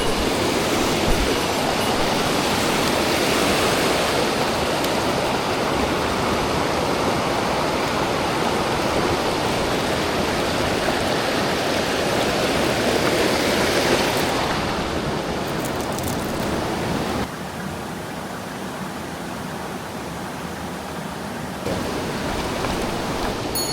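Rushing water of a mountain stream, a steady noise that steps down in level about fourteen seconds in and again a few seconds later, then rises slightly near the end.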